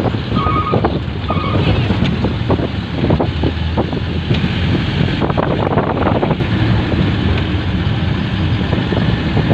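A vehicle driving along, its steady road and engine noise overlaid by wind buffeting the microphone, with scattered knocks and rattles throughout.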